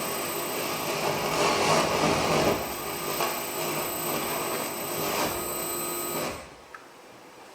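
Harsh, grating amplified sound from a live experimental sound performance, with a few louder swells, cutting off suddenly about six seconds in; after that only a faint steady background remains.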